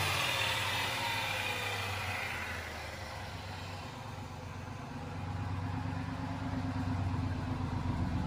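2003 Ford F-150 Harley-Davidson Edition's V8 engine running, its pitch falling back toward idle over the first couple of seconds, then picking up again in the last few seconds. The owner hears an exhaust leak in its note.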